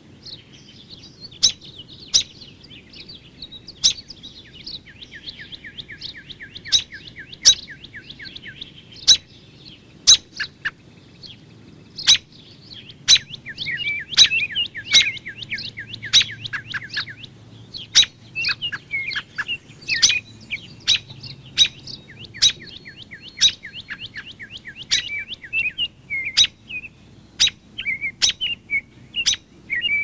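Songbirds calling: a steady run of sharp, high chirps, with fast trills at times.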